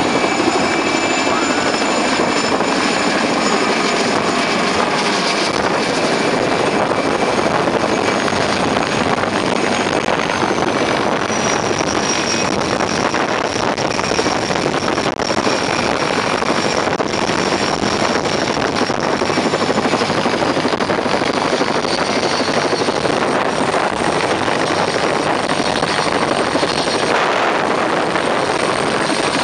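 Mil Mi-2 helicopter hovering close overhead: loud, steady rotor and twin-turbine noise, with a high turbine whine that slides lower twice.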